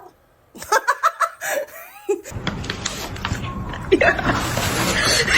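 A person laughing, with a loud rushing noise filling the second half that cuts off suddenly at the end.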